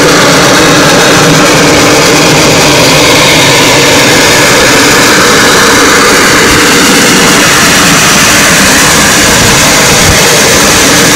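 A train running close by: a loud, steady roar with no clear rhythm or whistle.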